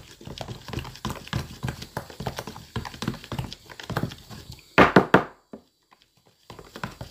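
A utensil stirring a thick slime mixture in a plastic tub, clicking and knocking against the sides in a rapid, uneven run. About five seconds in come a few much louder knocks, then the stirring stops briefly before starting again near the end.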